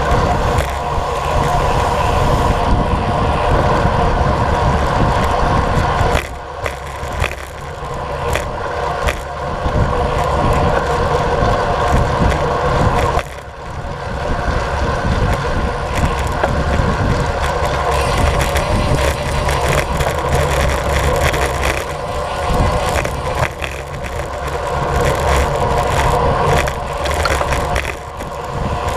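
Road bike riding fast in a group: steady wind noise on the camera with tyres humming on the asphalt, dipping briefly a few times.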